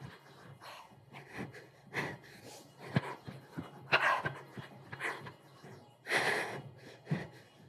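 A woman breathing hard, with heavy panting breaths about once a second and the longest about six seconds in, out of breath from high knees and burpees. Short soft thuds of bare feet landing on a rug fall between the breaths.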